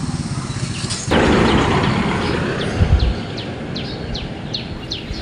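A small bird calling over and over, each call a short falling chirp, about two or three a second. About a second in, a sudden loud hiss comes in and slowly fades; it is the loudest sound here.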